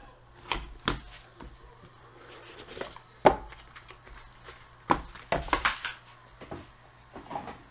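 Hands opening a cardboard trading-card box and lifting out a card in a clear plastic holder: a run of sharp taps and knocks of cardboard and plastic, the loudest about three seconds in and a quick cluster around five and a half seconds.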